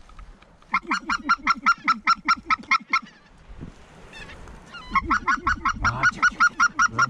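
Goose honking in fast, even runs of about six short calls a second: one run of about two seconds, a pause, then a second run starting about five seconds in.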